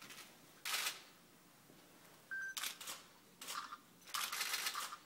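Stiff paper label rustling and crinkling in several short bursts as hands press and smooth it onto the glued rind of an Emmentaler cheese wheel.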